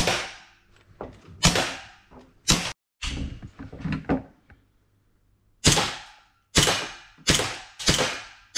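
Air pistol shots echoing off hard walls: three shots in the first two and a half seconds from a revolver-style air pistol, then a quick run of shots about one every 0.7 seconds from a semi-automatic-style air pistol.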